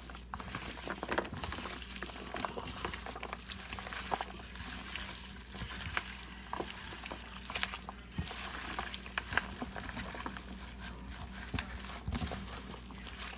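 Chopped raw chicken, onions, bell peppers and garlic being mixed together in a bowl for a curry marinade: an irregular wet rustling with scattered small clicks and knocks, over a low steady hum.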